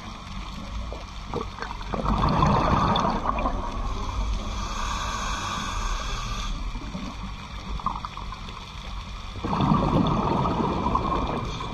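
Scuba diver's regulator breathing underwater: a gurgling burst of exhaled bubbles about two seconds in and again near the end, with a hissing inhalation between them, over a steady underwater rumble.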